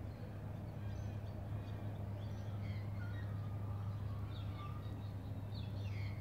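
Birds chirping and calling, short scattered chirps with a few falling notes, busier in the second half, over a steady low hum.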